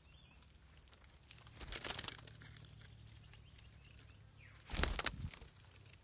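Two short bursts of scratchy rustling, a weaker one about a second and a half in and a louder one near the end: a red-breasted parakeet scrabbling on bark as it clambers into its tree-hollow nest.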